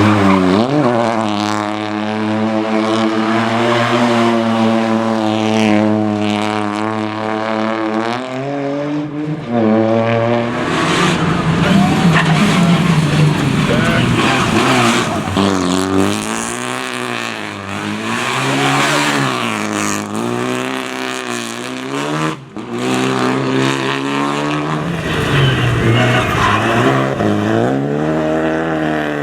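Rally car engine at high revs. The note is held nearly steady for several seconds, then gives way to a rougher stretch, then rises and falls over and over as the car revs up and backs off through the gears.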